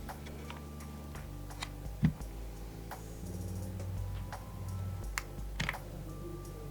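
Irregular keystrokes on a mechanical keyboard with tactile Akko V3 Creamy Purple Pro switches, with one louder knock about two seconds in, over soft background music.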